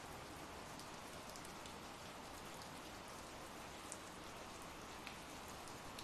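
Faint, steady rain ambience: an even hiss of rainfall with a few scattered, slightly louder drop ticks.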